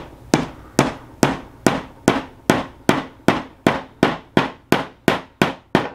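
Ball-peen hammer tapping a small nail into a wooden beehive frame: a steady run of about fifteen light strikes, roughly two a second, each with a short ring, speeding up a little toward the end.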